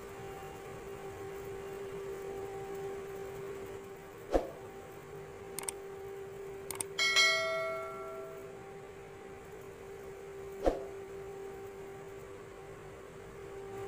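A steady hum with a few sharp metallic knocks, and about seven seconds in one clang of struck metal that rings for about a second and a half before it fades.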